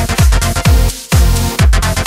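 Electronic dance music with a steady kick drum about twice a second under sustained synth chords, dropping out briefly about a second in.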